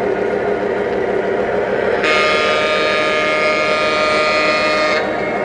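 Electronic sound system of an O-scale model diesel switcher playing its steady engine rumble. About two seconds in, a horn blast sounds for about three seconds and cuts off sharply.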